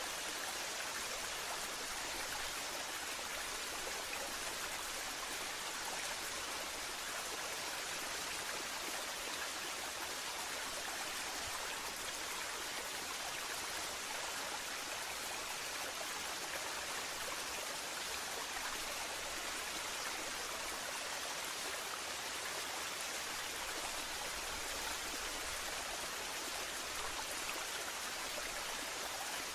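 Waterfall: steady, even rush of falling and splashing water.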